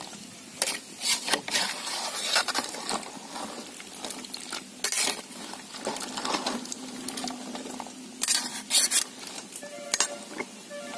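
A slotted metal spoon stirs cut drumstick pieces in a metal pot of water. It makes irregular scraping strokes and clinks against the pot, with a busy burst of strokes near the end.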